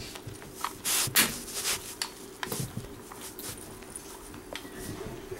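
A cat scuffling and rustling on carpet as it scrambles after a squid-on-a-string toy: scattered light scrapes and taps, loudest in a quick cluster about a second in, over a steady low hum.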